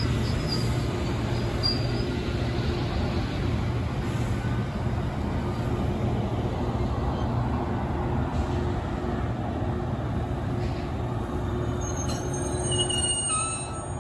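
Metra bilevel gallery coaches rolling past and pulling away, a steady rumble and clatter of steel wheels on rail with a low hum. A few brief high squeals come in near the end.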